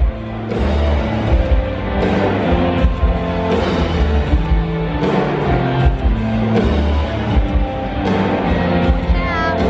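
Rock music with guitar and a steady beat, with a short warbling high note near the end.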